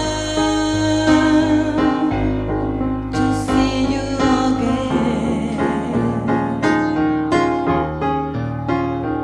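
A slow song with piano and keyboard: struck piano notes and chords, coming more often from about three seconds in, over held keyboard tones and a bass line.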